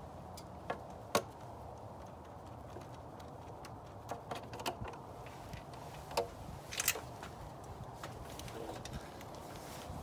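Scattered clicks and light knocks of a hand tool and plastic parts on top of a BMW M54 straight-six engine as the ignition coils are worked on by hand. The loudest come about a second in and near seven seconds.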